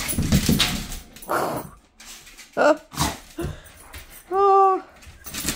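A dog's squeaker ball being chewed: knocks and scuffling of the ball and paws on a tile floor, then one long, steady squeak about four seconds in, lasting about half a second.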